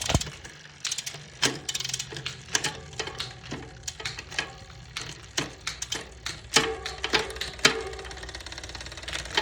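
Wilier Triestina Cento Uno SR road bike drivetrain turning with its chain running over the rear sprockets, giving irregular clicks and clatter, several sharp ones about a second apart. The noise comes from the chain sitting in second gear.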